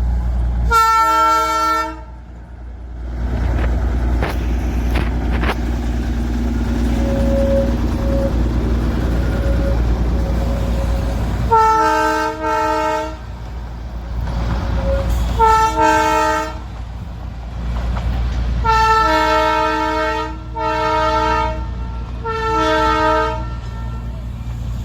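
Darjeeling Himalayan Railway toy train sounding a string of short toots on its horn, about seven in all: one near the start and the rest bunched in the second half, some in quick pairs. A steady low rumble from the train runs under them.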